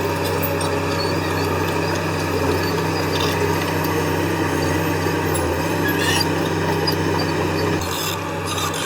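Heavy diesel machinery running steadily, with a few short metallic clanks and rattles over the engine's constant low drone.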